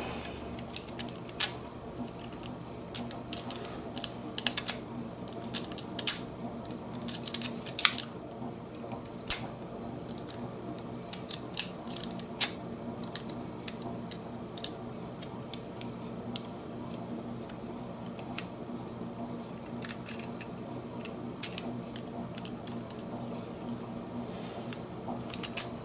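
Small steel lock pick working inside a Bunker Hill disc padlock: irregular light metallic clicks and ticks as the pick rakes and turns the discs, coming in little clusters with gaps between.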